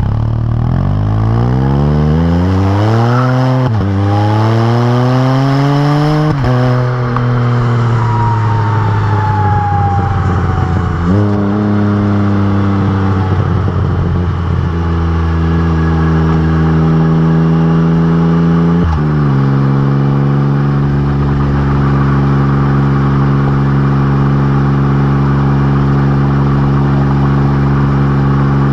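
Can-Am Spyder RT's Rotax 1330 three-cylinder engine through RLS Exhaust Crusher mufflers, accelerating up through the gears: the pitch climbs and drops back at each of several upshifts, then holds steady at a cruise in the second half.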